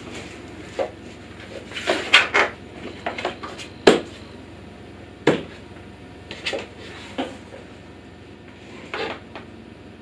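Hollow plastic knocks and clunks of a Kärcher KNT 4 shop vacuum's body being handled and shifted about on its swivel castor wheels, motor off; a dozen or so separate knocks, the sharpest about four seconds in.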